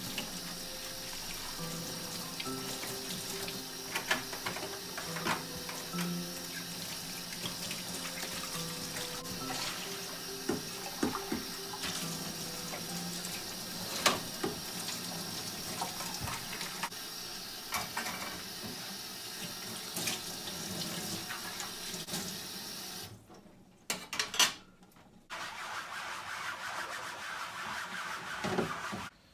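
Tap water running into a sink, with scattered clinks, over background music; the water cuts out briefly near the end and then runs again.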